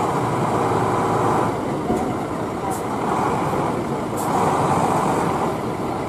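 Mercedes-Benz fire engine's diesel engine running as the truck creeps forward at low speed, with two brief hisses of air about three and four seconds in.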